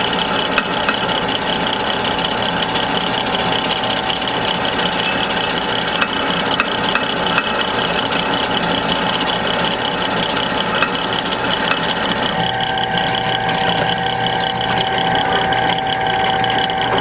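Electric drill press turning a small twist bit through steel lubricated with WD-40, a steady motor whine with the rapid chatter of the bit cutting; the sound changes about three quarters of the way through as the bit works through the piece.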